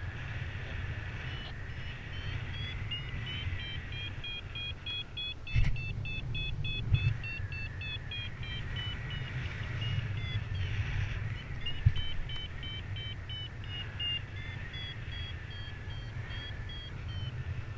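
Paragliding variometer beeping in short high tones whose pitch and pace rise and fall, quickening to about four beeps a second in stretches: the climb signal of the glider rising in lift. Steady wind rumble on the microphone underneath, with a couple of brief knocks.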